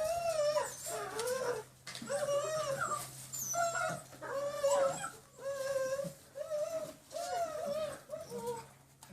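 Six-week-old German Shepherd puppies whining and whimpering over and over, short rising-and-falling cries that often overlap.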